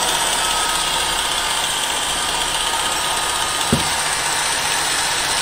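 Electric chain hoist motor running steadily as it lifts a load, with a faint steady whine over it and a brief knock about two thirds of the way through.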